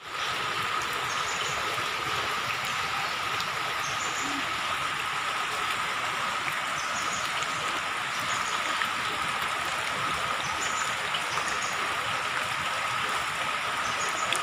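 Steady rain falling on shallow floodwater, an even hiss with a thin steady high tone running through it.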